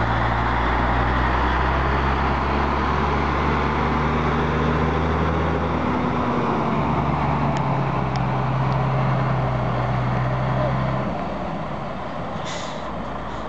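DAF CF truck's diesel engine running as the tractor unit pulls a low-loader trailer slowly past, the engine sound dropping away about eleven seconds in. A short hiss of air from the truck's brakes near the end.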